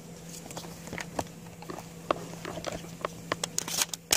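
Light clicks, scrapes and clothing rustle close to a belt-worn camera as a shooter loads and makes ready a Glock 20 10mm pistol, with a quick cluster of sharper clicks near the end.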